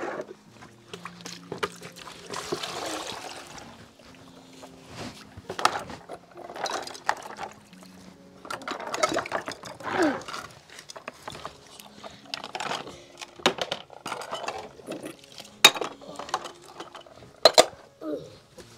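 Dishes being washed by hand in a basin: water splashing and pouring, with sharp clinks of bowls knocking together, the loudest clinks near the end.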